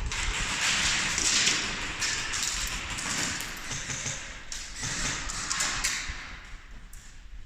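Rustling, brushing noise with scattered taps and thumps, dying down near the end.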